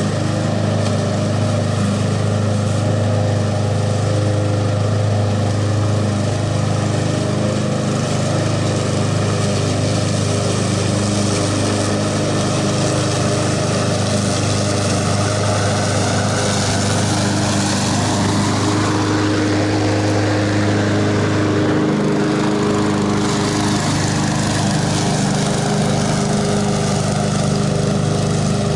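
Honda HRX217 walk-behind lawn mower engine running steadily while mowing thick grass. Its tone sweeps and shifts about two-thirds of the way through as the mower passes closest, then settles again as it moves away.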